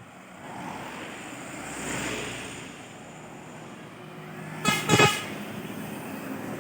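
Tour bus telolet basuri musical air horn giving two short, loud toots close together, about five seconds in, over steady traffic noise.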